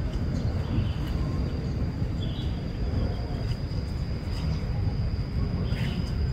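Outdoor ambience: a steady low rumble, most likely wind on the microphone, under a thin steady high-pitched whine, with a few short faint bird chirps.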